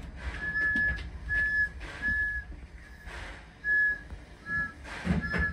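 Short, high-pitched whistle blasts, about eight in a row, some with a second lower note, over a low rumble: shunting whistle signals to the steam locomotive as it approaches to couple up.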